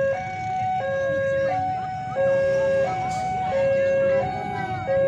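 Railway level-crossing warning alarm sounding its electronic two-tone signal. A lower and a higher tone alternate steadily, each held about two-thirds of a second. It signals that a train is approaching the crossing.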